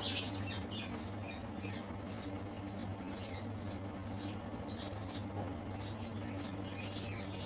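Black felt-tip marker squeaking and scratching on paper in many short, irregular strokes as an outline is inked, over a steady low hum.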